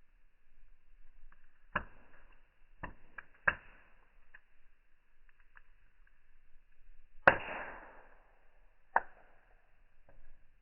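Wood fire crackling in slow motion, slowed-down sound: about six sharp, separate pops, the loudest about seven seconds in with a short trailing tail.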